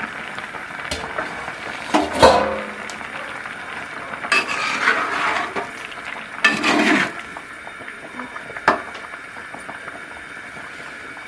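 Pot lid and spoon clattering against a cooking pot as boiling pieces of elephant foot yam are checked for doneness, a few sharp knocks and scraping stirs over the steady bubbling of the water.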